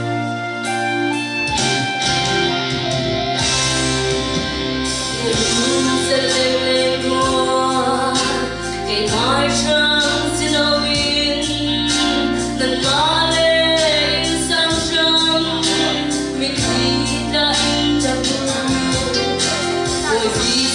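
A woman singing into a handheld microphone through a PA, over backing music with a steady beat. Her voice comes in a few seconds in.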